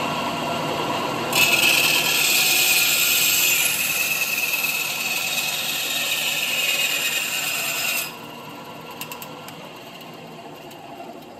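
Bandsaw with a metal-cutting blade cutting a metal drawer slide to length: the saw runs, and from about a second in to about eight seconds the blade in the metal makes a loud, high hiss. Then the cut is through and the saw runs on more quietly, fading near the end. The cut goes easily, "just like butter."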